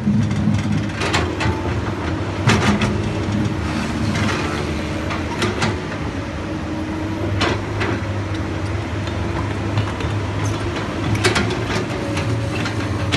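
Komatsu PC200 hydraulic excavator's diesel engine running steadily, with sharp metallic clanks and knocks every second or few seconds as the machine works earth.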